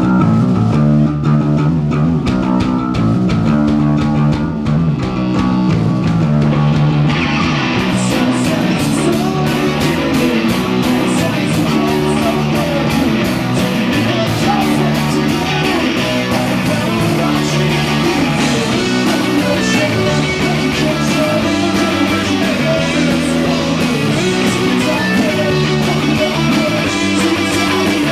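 Live rock band playing, led by a repeating guitar riff. About seven seconds in the sound grows fuller and brighter as the rest of the band comes in.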